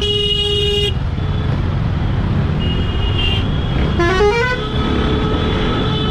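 City traffic heard from a moving motorcycle: a steady rumble of engine and wind with vehicle horns honking over it. A long horn blast at the start, a short higher toot about three seconds in, then a rising tone and a long steady horn from about five seconds on.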